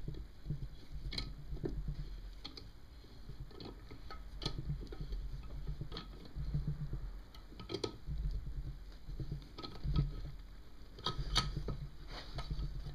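Light, irregular metal clicks and ticks of a homemade C-clamp valve spring compressor being screwed down and worked against a motorcycle cylinder head's valve springs to free the split keepers, over a low hum.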